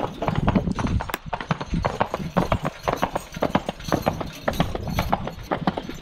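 Hoofbeats of a team of Belgian draft horses walking on an asphalt road while pulling a loaded log wagon: a steady, irregular clip-clop of many sharp hoof strikes.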